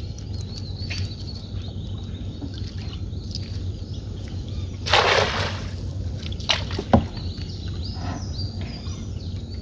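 A cast net thrown from a canoe lands on the water with a brief splash about five seconds in, followed by a couple of short knocks.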